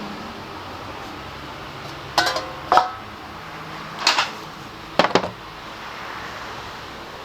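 Metal objects clinking and clattering: four short, sharp clanks over about three seconds, the last one doubled, over a steady background hum.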